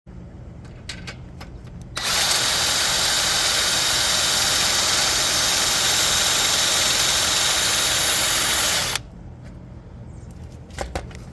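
Power drill running steadily for about seven seconds, starting about two seconds in and stopping abruptly, with a few light clicks before and after.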